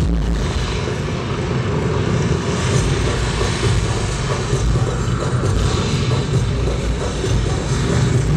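Sound effects from a projection light show's soundtrack played over loudspeakers: a loud, steady, engine-like rumbling drone.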